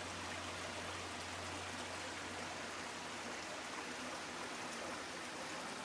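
Steady, even rushing noise, like running water, with no distinct events.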